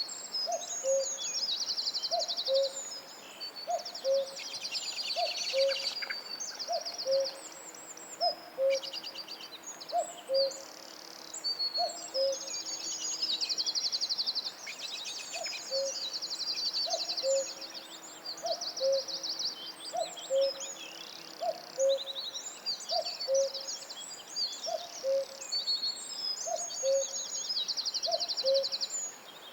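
Tropical forest bird chorus: a low two-note hoot repeated a little over once a second, under many high chirps, whistles and rapid trills.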